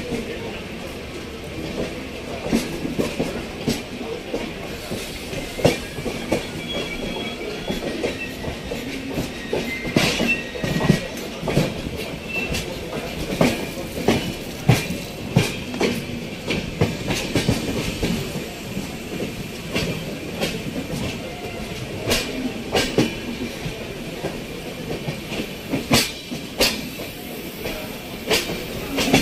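Passenger train's coach wheels clattering over rail joints and points, with a faint wheel squeal about ten seconds in, heard from an open coach doorway.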